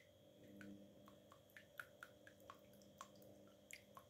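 Calico cat lapping water: faint, quick wet ticks at about three a second.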